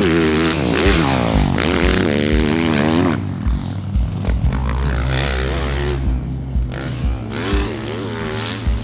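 Dirt bike engines revving up and dropping off again and again, over background music with a steady beat.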